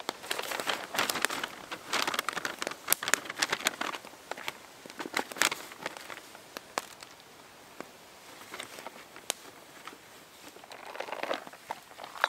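Brown paper bag crinkling and rustling as it is handled and bacon slices are laid inside it. The rustling is dense in the first few seconds, sparse in the middle, and picks up again near the end.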